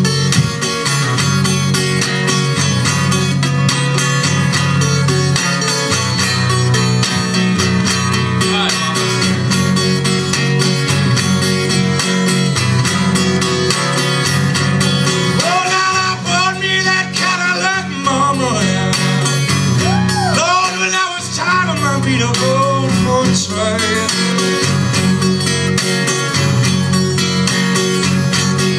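Solo acoustic guitar playing an instrumental blues break with a steady, driving picked rhythm. For several seconds in the middle, a higher melody line with bending, wavering pitch rides over the guitar.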